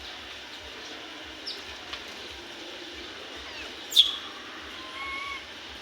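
Short high animal squeaks and chirps over a steady background hiss: two small chirps, then a sharp, loud falling squeak about four seconds in, then a short level whistle.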